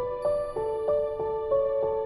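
Soft background music: a gentle new-age melody of repeated notes, about three a second.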